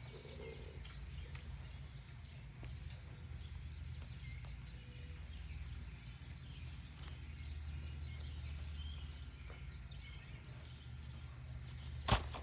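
Quiet outdoor ambience with a steady low hum and faint scattered chirps, broken by a single sharp click near the end.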